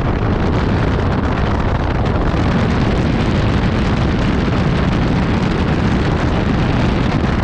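A large fan blowing, its air buffeting the microphone in a loud, steady rumbling rush.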